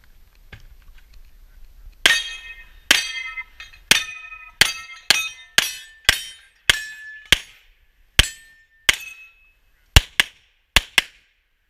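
Pistol fired about fifteen times at a Texas Star steel target, slowly at first and ending in two quick pairs, each shot followed by a short metallic ring of the steel plates being hit.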